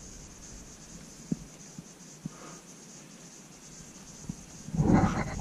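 A bouldering climber's hands and rock shoes scuffing on granite, with a few sharp taps, over a steady high insect hiss. Near the end comes a loud, effortful exhale from the climber as he makes a hard move.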